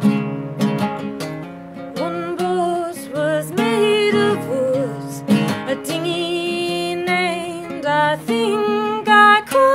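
Nylon-string classical guitar strummed in a steady rhythm. From about two seconds in, a woman's wordless singing with wavering, gliding pitch joins it.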